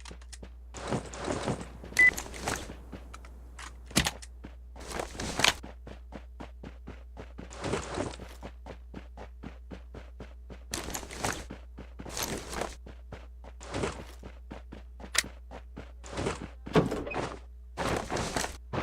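Many light knocks and clicks at an irregular pace, mixed with short noisy bursts every second or two, over a steady low hum.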